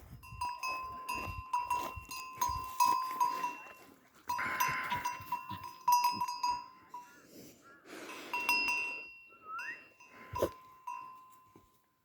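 A small metal bell jingling over and over in irregular strokes, each stroke a ringing note. Twice it is joined by a brief rough, noisy sound.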